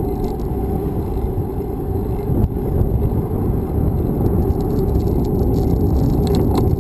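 Wind buffeting on an on-board action camera's microphone while the vehicle moves along the road, a dense, choppy rumble with road noise underneath. A few faint ticks come near the end.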